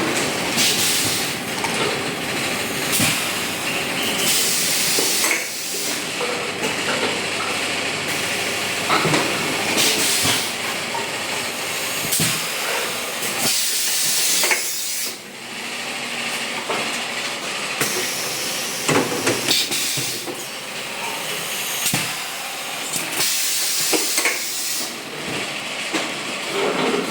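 Oil-free air compressor running, with a steady noisy hiss of air that swells several times, and occasional clicks.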